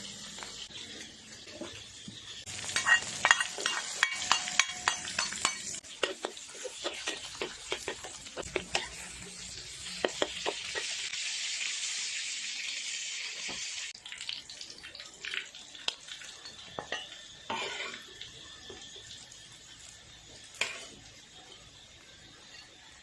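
Quail and garlic frying in hot oil, sizzling steadily, with a utensil clacking and scraping against the pan in quick strokes through the first half. The sizzle eases off in the last third, with only an occasional knock of the utensil.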